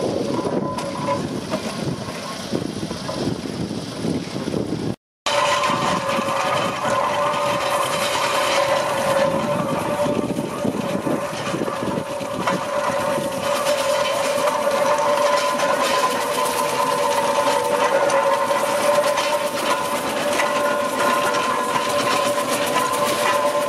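Fowler BB1 class steam ploughing engine travelling along a road, its engine and gearing running with a steady high whine. The sound breaks off for a moment about five seconds in.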